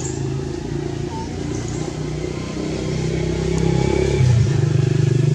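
Motor vehicle engine running steadily, its low hum growing louder over the last couple of seconds.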